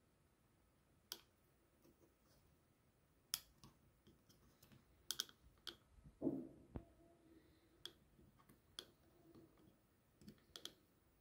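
Faint, scattered plastic clicks and taps as an earbud's button is pressed and the earbud is seated in its charging case, with one duller knock a little past the middle. This is the button-held reseat used to wake a Xiaomi Mi Earbuds Basic 2 earbud that won't turn on.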